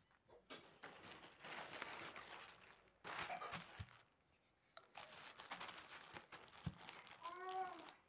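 A clear plastic sheet covering the table crinkles in irregular bursts as hands press and work tart dough on it. Near the end there is a short rising-and-falling call.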